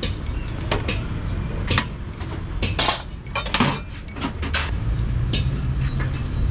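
Metal clinks and taps as long steel studs and bolts are handled and set against a diesel engine block, over a steady low rumble that grows stronger near the end.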